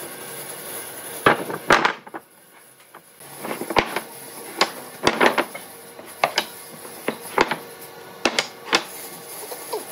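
Irregular sharp knocks and taps of wooden pieces and hand tools being worked and handled, about ten in all, some close together in pairs.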